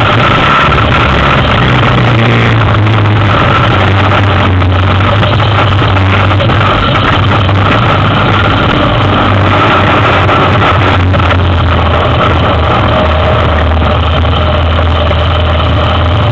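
2003 Yamaha Big Bear 400 ATV's single-cylinder four-stroke engine running steadily at low speed while the quad wades through a shallow creek, its note rising briefly about a second in and then settling, with water splashing around the wheels.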